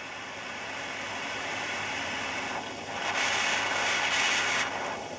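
Small handheld gas torch burning with a steady hissing flame as it heats the edge of a polypropylene plug; the hiss grows louder for about a second and a half past the middle.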